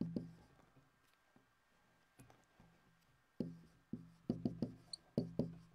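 Dry-erase marker writing on a whiteboard. After a single tap at the start it is quiet for a few seconds, then from about three and a half seconds in comes a quick, uneven run of taps as letters are written, each knock followed by a short low ring from the board.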